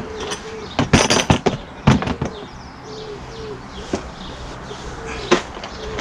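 Plastic DeWalt toolbox set down and opened: hard plastic clacks and knocks, a cluster about a second in, another near two seconds and single ones later. Behind them a short low note that rises and falls repeats under a second apart.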